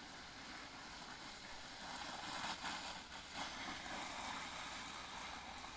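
Water from a garden hose spraying over cabbage plants: a faint, steady hiss and patter of spray falling on the leaves. It grows a little louder about two seconds in.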